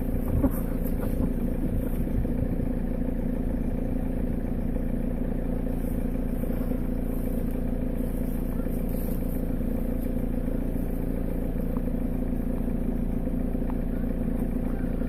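Steady mechanical hum of an idling engine, even and unchanging, with a few light clattering clicks in the first second.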